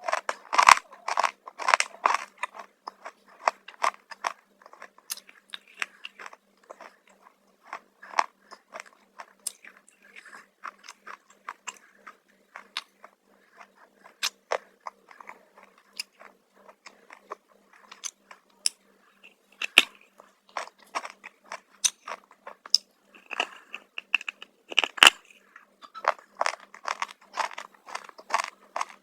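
Close-up biting and crunching of crunchy black chips, irregular crackly crunches with chewing between them, densest at the start and again near the end.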